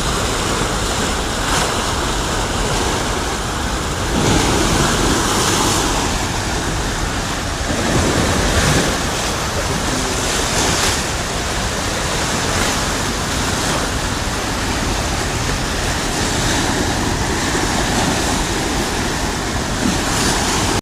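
Rushing floodwater: a loud, steady wash of water noise that swells briefly about four and eight seconds in.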